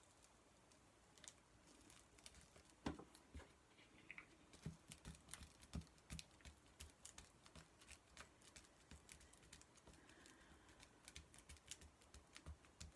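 Faint, irregular clicks and light taps of small paper craft pieces being handled and pressed down on a tabletop.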